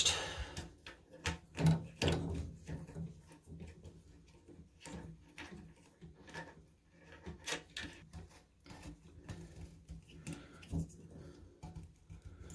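Plastic retaining nut being threaded and hand-tightened onto the shank of a toilet-tank fill valve: irregular small clicks and rubbing of plastic parts, one louder knock about two seconds in.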